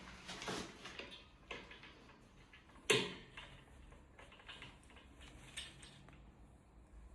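Small clicks and taps of a nut and washer being fitted by hand onto a bolt on the steel frame, with one sharper knock about three seconds in.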